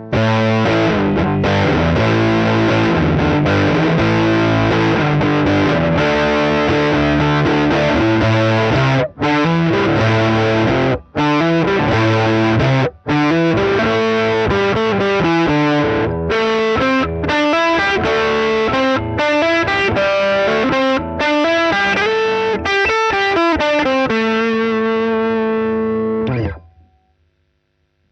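Gibson Les Paul Tribute electric guitar played through a DIY one-knob fuzz pedal based on the Colorsound Fuzz, into an Atomic Amplifire modelling a Fender Deluxe Reverb. It plays heavily distorted riffs with a few brief breaks, then ends on a held chord that cuts off near the end.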